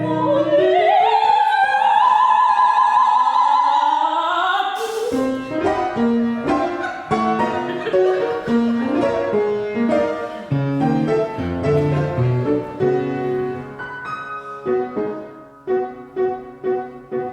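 An operatic voice holds a long high note with vibrato, sliding upward, until it breaks off about five seconds in. Piano accompaniment then plays on alone in separate notes and chords, becoming a pulsing figure of about two strokes a second near the end.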